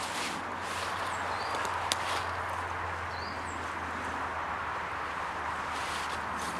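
Woodland ambience: a steady rushing background with a few short, high bird chirps scattered through it, and a single sharp click about two seconds in.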